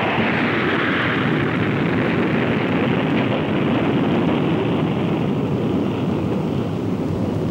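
Jet engines of a B-52 mothership carrying the X-15, a steady loud jet noise as it passes overhead, easing a little near the end as it moves away.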